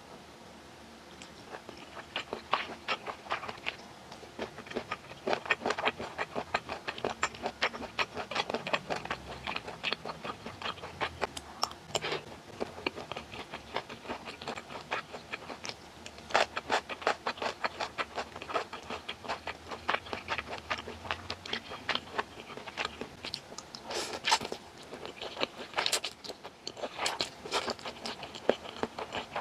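Close-miked chewing of japchae glass noodles and salted octopus: a dense run of small mouth clicks, several a second.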